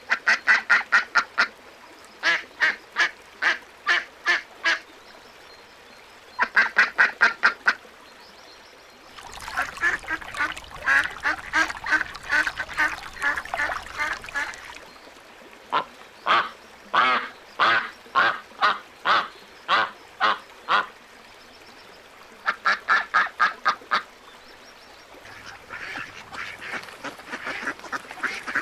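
Ducks quacking in quick runs of several calls a second, bout after bout with short pauses between. In the middle the calls grow denser, with several birds overlapping.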